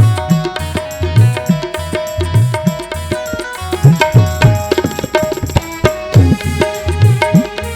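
Tabla played in a fast, steady rhythm, the bass drum's strokes bending in pitch, over a sustained melodic accompaniment.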